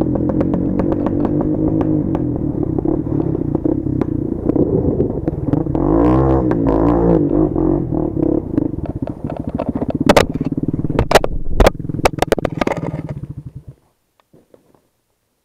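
Honda TRX250EX ATV's single-cylinder four-stroke engine running on a trail, revving up and down about six seconds in. Several sharp knocks and clatters follow between about ten and thirteen seconds, the helmet-mounted camera striking a tree and being knocked loose. Then the sound cuts off abruptly.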